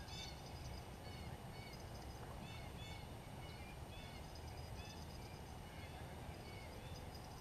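Many small birds chirping, with short up-and-down calls at different pitches several times a second over a steady low rumble.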